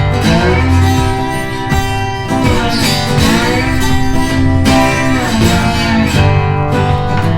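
Background music: strummed acoustic guitar with bending, sliding notes over a steady bass.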